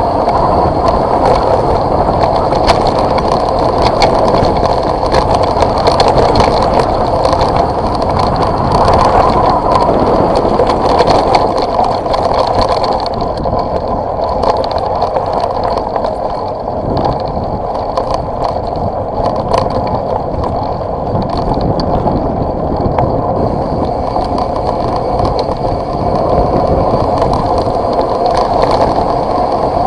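Tyres rolling down a gravel dirt road, heard through a vehicle-mounted camera: a steady rumble of rolling noise with constant small rattles and knocks from the rough surface. It is a little quieter for a stretch in the middle.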